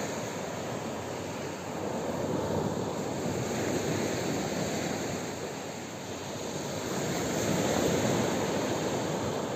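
Surf breaking and washing up on a sandy beach, a steady rush that swells twice.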